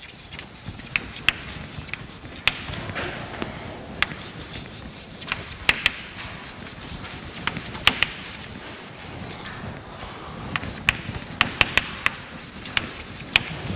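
Chalk writing on a blackboard: sharp, irregular taps of the chalk striking the board, with scratchy strokes between them.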